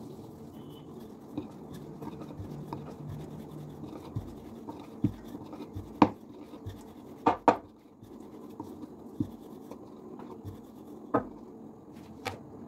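Rolling pin rolling roti dough on a round rolling board: a steady low rubbing and scraping, broken by scattered sharp knocks of the pin and board, the loudest about six seconds in and a pair about a second later.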